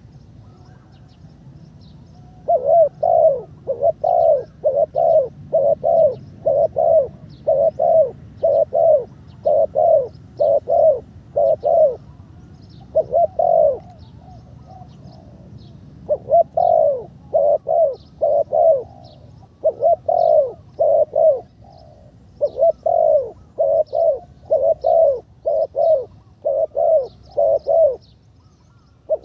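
Spotted dove cooing in long runs of short, repeated coos, about two a second, broken by several short pauses; it starts a couple of seconds in. Faint high chirps of small birds sound behind it.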